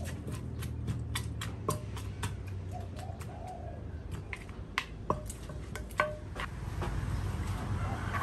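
Wooden pestle pounding and stirring in a clay mortar: irregular dull knocks and clicks, about two a second, with a spoon tapping and scraping against the mortar.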